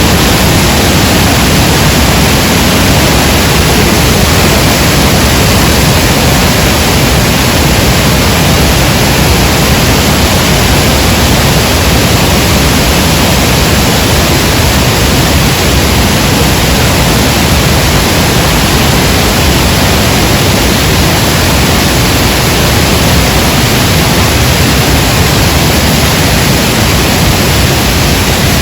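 The Rhine Falls up close: a loud, unbroken rush of falling water and spray, steady throughout.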